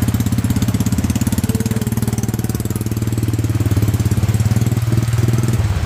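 Old motorbike with a cargo cart running with a loud, rapid, steady putter as it pulls away, easing off slightly near the end; its exhaust pipe is broken.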